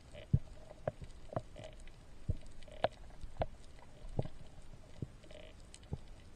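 Underwater sound heard through a waterproof camera housing on a reef dive: a muffled hiss with irregular sharp knocks and clicks, about one or two a second.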